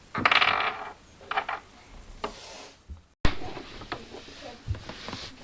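Plastic toy parts being handled and taken out of a box: a loud rustle in the first second, then scattered light knocks and clatters.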